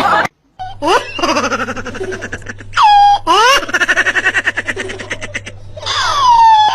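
Hearty laughter in rapid pulses, several bouts, broken by high squeals that rise and fall in pitch between the bouts.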